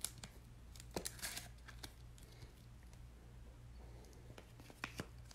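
Faint clicks and a light rustle of hard plastic trading-card cases and sleeves being handled and set down, a few scattered taps over a steady low hum.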